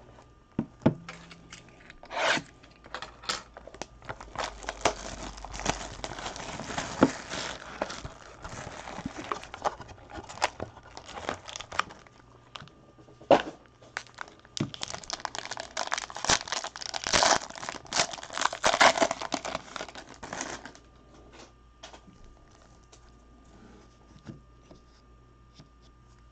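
Foil wrapper of a trading-card pack crinkling and tearing as it is opened, with clicks and taps of the cardboard box being handled. The crinkling stops about twenty seconds in, leaving faint handling of the cards.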